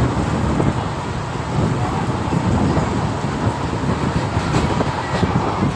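Passenger train in motion, heard from inside the coach by an open window: a steady rumble of wheels on the track, with a few faint clicks near the end.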